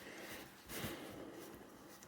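Faint rubbing and handling of an old hand drill as oil is wiped over it, with a soft scratchy swish just under a second in.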